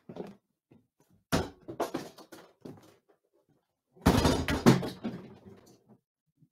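Hollow plastic shop mannequin being handled roughly and lifted away: sharp knocks and clatters about a second in, then a louder burst of crashing thuds about four seconds in.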